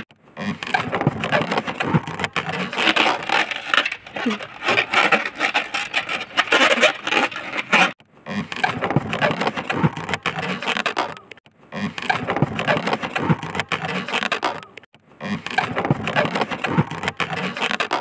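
Latex modelling balloon squeaking and rubbing against itself and the hands as it is twisted and pushed through a loop of the shape, in uneven spells broken by three brief silences.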